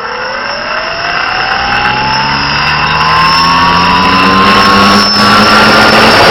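Electric motor and propeller of an FPV model aircraft whining and rising steadily in pitch as the throttle comes up, over rushing air noise that grows louder. A short click about five seconds in.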